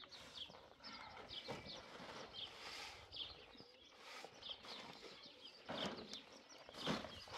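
Small birds chirping over and over, with the rustle and scrape of heavy cement sacks being pulled off a pickup's tailgate, loudest about a second before the end.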